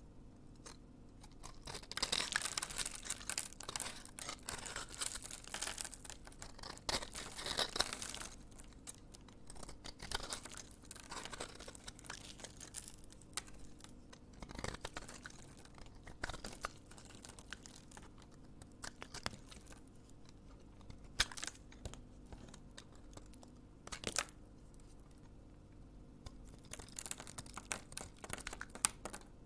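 Knife cutting through a bar of soap into cubes: crisp crunching and crackling in several dense stretches, the heaviest in the first eight seconds, with scattered sharp clicks later on.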